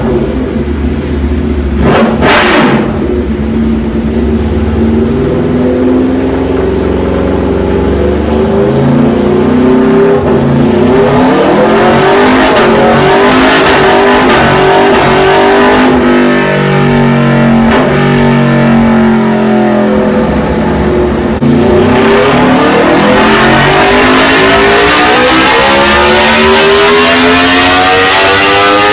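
Aprilia RSV4 R's V4 engine through an SC Project exhaust, run hard on a rear-wheel dyno. The revs repeatedly climb and drop back as it shifts, then rise in one long pull over the last several seconds.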